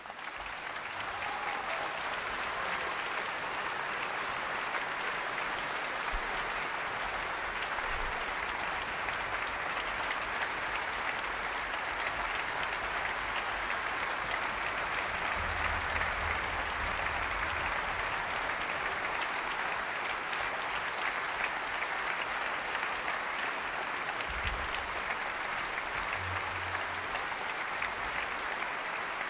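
Concert-hall audience applauding, rising quickly at the start and then continuing as steady clapping.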